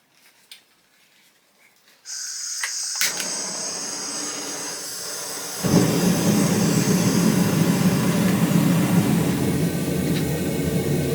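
Forge burner starting up: a steady hiss begins about two seconds in, then a louder, low, steady burner roar comes in about halfway and keeps running.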